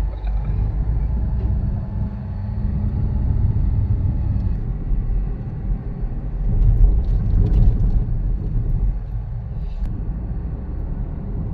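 Toyota Vios running, a steady low rumble of engine and road noise.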